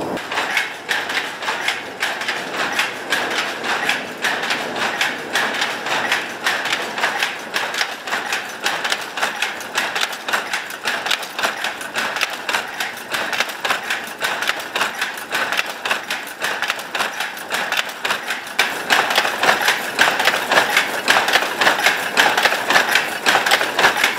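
Belt-driven Toyoda automatic power loom running at speed, making a fast, even mechanical clatter of several sharp clacks a second. It grows louder about three-quarters of the way through.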